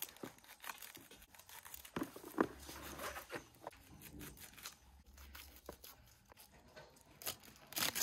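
Fresh collard greens (sukuma wiki) being torn off their stems and cut by hand: a run of irregular crisp rustles, tears and snaps of the leaves.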